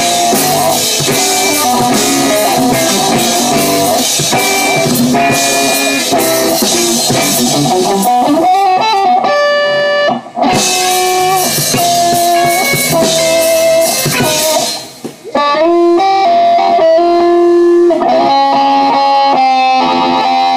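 Live band playing guitar and drums. The music breaks off briefly about ten seconds in and again around fifteen seconds; after that it is mostly held guitar notes with less drumming.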